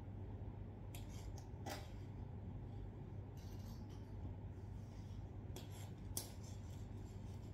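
Handling noise of a coiled Monster Rock guitar cable being unwound: soft rubs and small clicks of the cable and its metal jack plugs, in a few short bursts, over a low steady hum.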